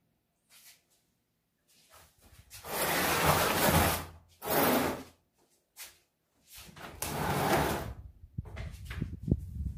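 Broom scraping across a cement floor in about three long sweeping strokes, followed by lighter rustling and small knocks.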